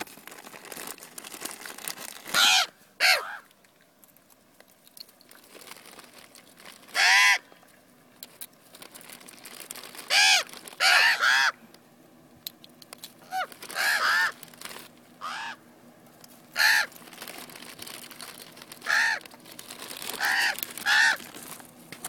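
Common ravens calling: about fourteen short caws, some single and some in quick pairs or threes, each with a pitch that rises and falls.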